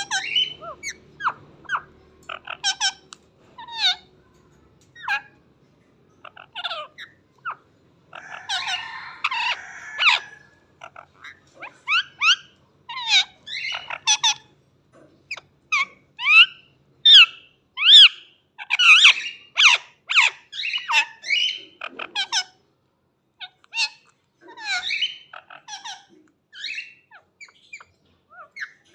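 Pet parrot calling in a string of short, sharp chirps, whistles and squawks, some gliding in pitch, with a harsher squawk about eight seconds in and the calls coming thick and fast through the middle.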